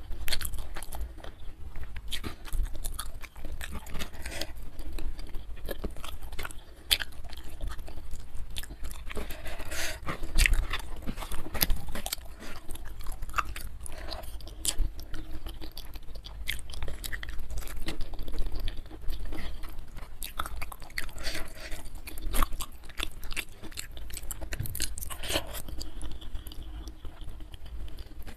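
Close-miked chewing of a mouthful of rice and side dishes, with many short, irregular clicks throughout.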